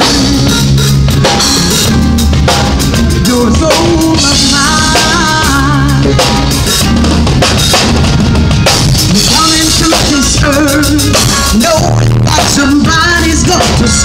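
A live band with drum kit and electric guitar plays a song through stage speakers while a woman sings into a handheld microphone, holding long, wavering notes.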